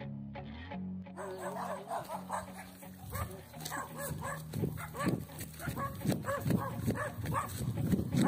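Guitar intro music ends about a second in, then a Belgian Malinois barks repeatedly.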